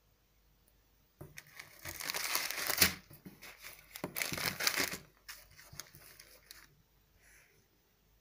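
Clear plastic zip bag of fennel seeds crinkling as a hand handles it, starting about a second in, loudest in two spells around two and four seconds in, then trailing off.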